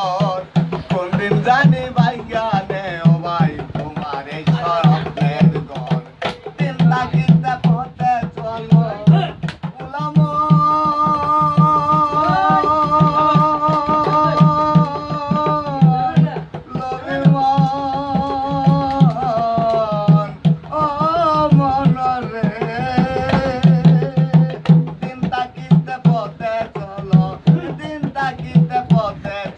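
Bengali baul folk song: a man singing long, wavering held notes over a fast, steady hand-drum rhythm.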